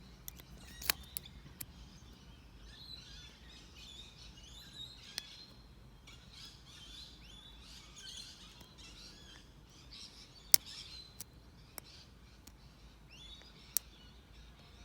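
Birds chirping and calling continuously in the background, with several sharp, isolated metallic clicks of a lock pick and tension wrench working in a padlock. The loudest click comes about ten and a half seconds in.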